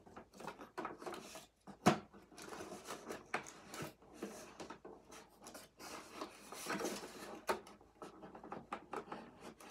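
Tape being pulled off a large plastic toy camper: scratching and rubbing on the plastic with scattered clicks and knocks, one sharp knock about two seconds in.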